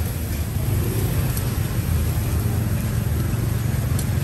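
Steady low rumble of street traffic with general city-street noise.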